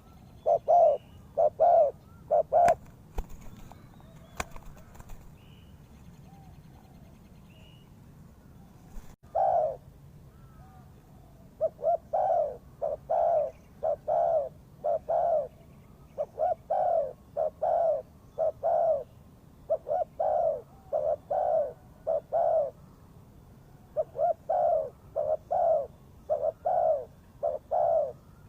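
Spotted dove cooing: short phrases of four or five low notes, repeated over and over. There is a gap of several seconds early on, broken only by a few sharp clicks.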